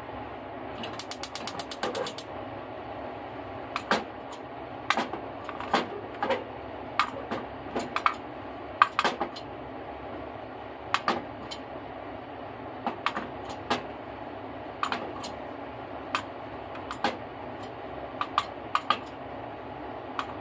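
Gas stove igniter clicking rapidly for about a second, then scattered sharp pops and crackles from a metal pan of white powder heating on the burner.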